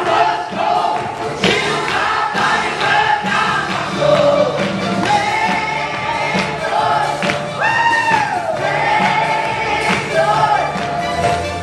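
Live gospel worship music: several voices singing together into microphones over amplified music with a steady low bass line.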